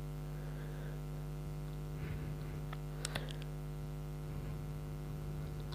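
Steady electrical hum at a fixed pitch, with a faint click about three seconds in.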